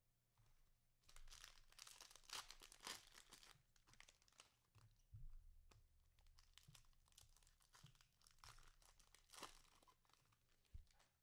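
Faint crinkling and tearing of a cellophane trading-card pack wrapper, in irregular bursts of rustling for most of the stretch, as a Prizm cello pack is opened and its cards are pulled out.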